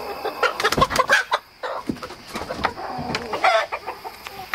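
Chickens clucking and calling as they settle to roost in the coop, with one louder wavering call about three and a half seconds in. A few short knocks and scuffs come about half a second to a second in.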